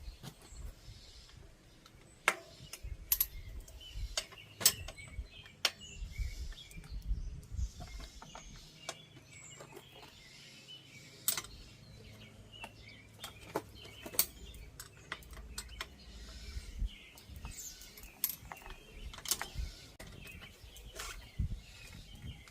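Irregular sharp clicks and clinks of hand tools and bicycle parts as a mountain bike is stripped down, with birds chirping in the background.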